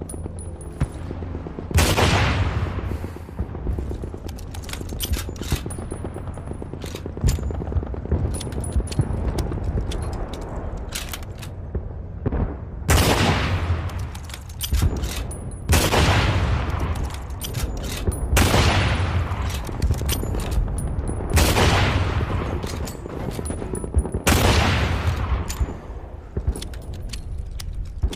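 Type 98 rifle firing: six loud shots, each with a long echoing tail. The first comes about two seconds in; the other five come in the second half, roughly every three seconds. Shorter sharp clicks and knocks fall between the shots, over a steady low rumble.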